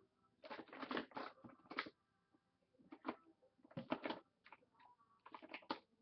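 Hands rummaging through a container of makeup, the items clicking and rattling against each other in about four short bursts.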